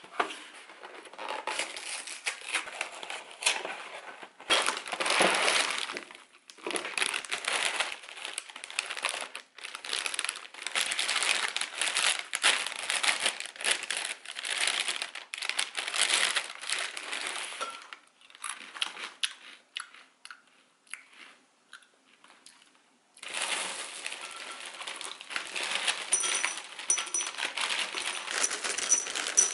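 Plastic cereal bag crinkling in irregular bursts as it is handled and pulled open. In the last several seconds, cereal pieces are poured from the bag into a ceramic bowl, pattering and clinking against it with faint ringing.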